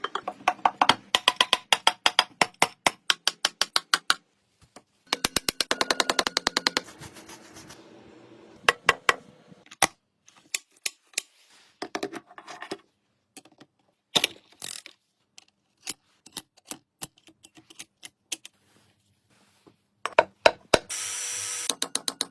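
Bursts of rapid sharp knocks or taps, about seven a second, with sparser single strikes between them and a short steady hiss near the end.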